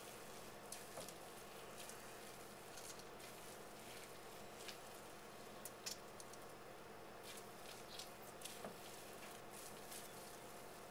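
Faint wet squelching of blended greens pulp being squeezed by hand in a mesh paint strainer bag, with juice trickling and dripping into a bowl: soft irregular crackles and patters over a steady low hum.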